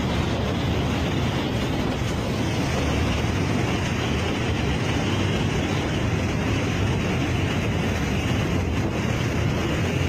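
Storm wind driving sheets of rain and spray, a steady dense rush with wind buffeting the microphone.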